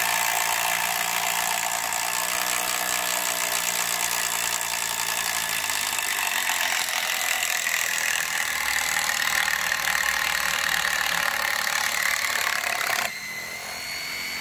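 Makita cordless impact driver hammering a fastener home: a dense, steady, loud rattle for about thirteen seconds. Near the end it drops to a quieter high whine.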